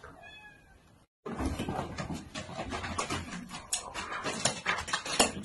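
A cat gives a short meow. About a second in, after a brief break, comes a louder, noisy stretch of cat sounds mixed with scattered knocks and clatter.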